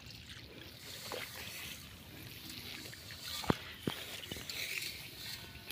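Steady outdoor hiss across an open, waterlogged rice field, with two sharp clicks about half a second apart around three and a half seconds in.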